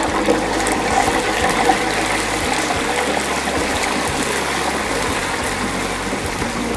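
A whole turkey going into the hot oil of an electric turkey fryer. The oil bursts into a steady, vigorous bubbling sizzle as it boils up around the cold bird.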